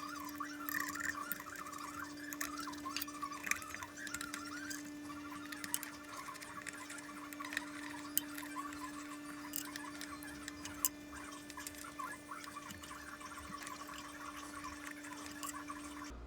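Faint small metal clicks and light squeaks of screws being turned with a 4 mm Allen wrench to fasten the blade clamp plate onto a planer's cutter head, over a steady low hum.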